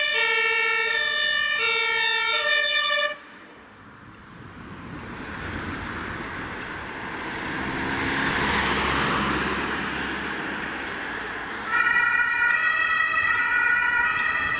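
Ambulance two-tone siren (German Martinshorn) alternating between two pitches, which cuts off abruptly about three seconds in. Then a van's engine and tyres swell and fade as it drives past. A two-tone siren starts again loudly near the end.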